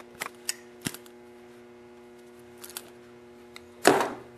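Screwdriver backing the small brass fixed air-jet screw out of a Tecumseh snowblower carburetor: a series of small sharp metallic clicks, with a louder scraping clatter of the part being handled near the end.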